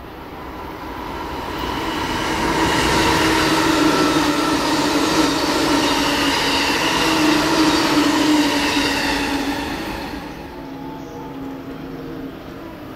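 JR East E657 series limited express electric train running through at speed. The sound of its wheels on the rails builds over the first couple of seconds, stays loud for about seven seconds as the cars go by, and fades away from about ten seconds in.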